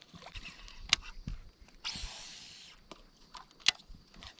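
Fishing reel during a cast: a sharp click, then about a second of hissing whir that fades as line pays off the spool, and another sharp click near the end.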